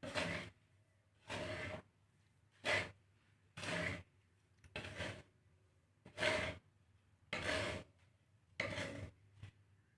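Dry seed mix of millet and black glutinous rice being stirred and scraped round a roasting pan, about eight swishing strokes roughly one a second.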